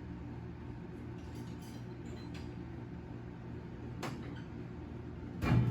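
Small metal tools being handled: a few faint clinks, then a louder knock near the end, over a steady low workshop hum.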